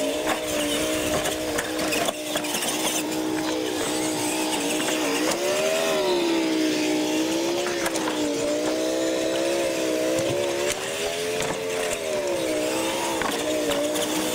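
Radio-controlled monster trucks racing, their motors and gears whining together. The whine holds a steady pitch at first, then rises and falls repeatedly as the throttle is worked, over the hiss of tyres on concrete.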